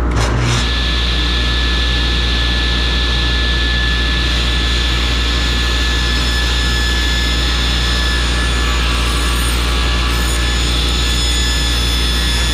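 Table saw and shop dust collector running together, a loud steady machine noise with a low hum, as the blade rips strips of barn board; a single knock sounds right at the start.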